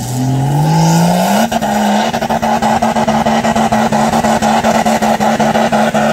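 Off-road 4x4's engine revving up over about two seconds and then held at high revs under full load as it climbs a steep dirt bank, the note pulsing rapidly.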